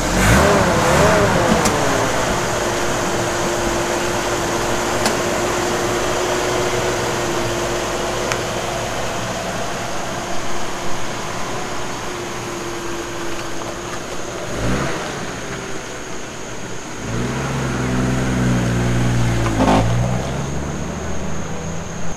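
A 1981 Jeep CJ7's engine, running on a freshly rebuilt and tuned Weber 32/36 carburetor, starts moving off and drives away. The engine note wavers in the first couple of seconds, then runs steadily. Near the end it swells into a louder low-pitched acceleration as the Jeep pulls away.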